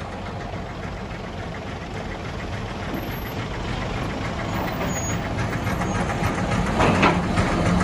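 Heavy diesel machinery running, a steady low engine drone that grows gradually louder, with one short louder clatter about seven seconds in.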